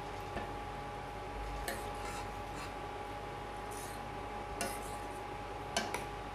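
Steel ladle clinking and scraping against a stainless steel pan while stirring a thick sambar, a scattering of short sharp clinks with the loudest pair near the end. Underneath runs a steady hum with a faint high tone.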